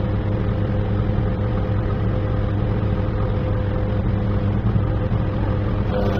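Crane engine running steadily with a constant low hum, heard from inside the operator's cab while the crane holds a suspended concrete block.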